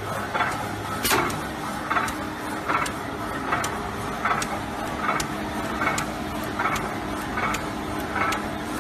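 QH 9905 box-forming machine running while it forms cardboard trays. It makes a steady mechanical hum with a regular clack about five times every four seconds, and light ticks between the clacks.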